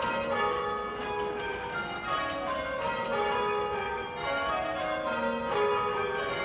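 Church tower bells rung full circle by a band of bell ringers pulling ropes, the bells striking one after another in a steady sequence with their tones ringing on and overlapping.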